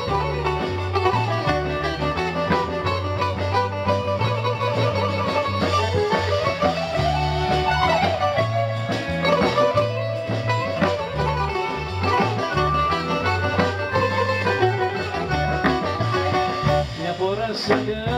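Greek bouzouki playing a melodic instrumental passage with sliding runs, the band's bass notes moving underneath.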